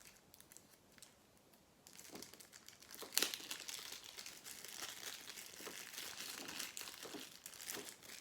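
Packaging crinkling and tearing as a small tool is unwrapped, starting about two seconds in, with a sharp crackle about three seconds in.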